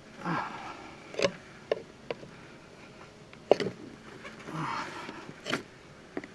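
Tire irons prying at the bead of a John Deere L100 garden tractor's rear tire: several sharp, irregular knocks and clicks of metal on the wheel rim, the loudest about three and a half seconds in, with brief scraping in between.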